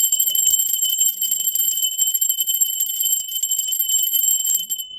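Brass puja hand bell (ghanti) rung rapidly and continuously, a bright, steady ringing that dies away near the end.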